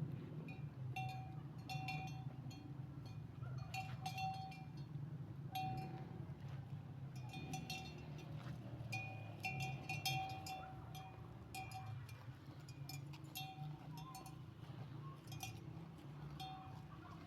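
Metal bells worn by grazing sheep clanking irregularly as the flock moves, many light strikes with short pauses between, over a steady low rumble.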